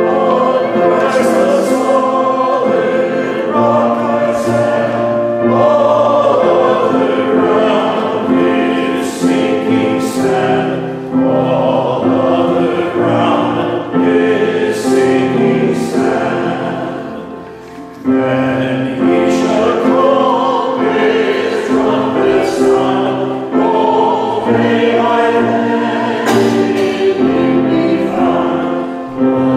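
Congregation singing a hymn, with a brief lull a little past halfway.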